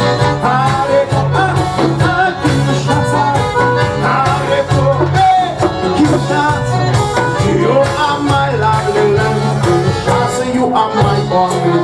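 Live band music: a melody over a steady, pulsing bass beat, in a passage without clear lyrics.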